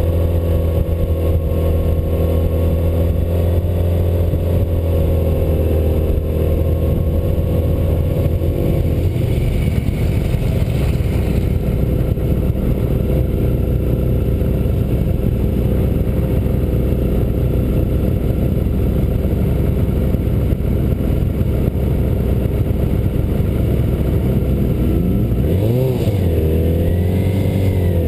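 Yamaha R6 sportbike's inline-four engine heard from a camera mounted on the bike, running at a fairly steady pitch for several seconds and then rougher with rushing noise. Near the end a quick rev rises and falls.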